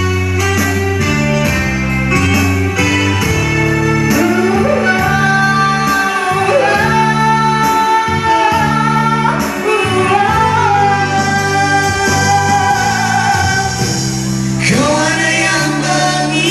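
A woman and a man singing a pop ballad duet into microphones over instrumental accompaniment, with long held notes about halfway through.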